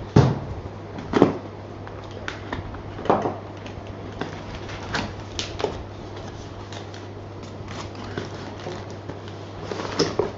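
Cardboard parcel being opened and unpacked by hand: irregular knocks, taps and rustles of cardboard flaps, tape and paper, the loudest knocks in the first few seconds.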